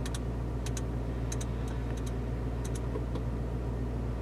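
Sharp clicks, often in quick pairs at an uneven pace, from the centre-console controller of the Mercedes-AMG G63's infotainment system as menus are stepped through, over a steady low hum in the car's cabin.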